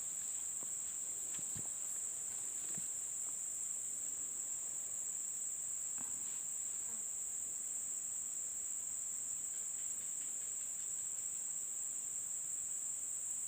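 Steady, high-pitched chorus of insects, crickets or similar, chirring continuously without a break.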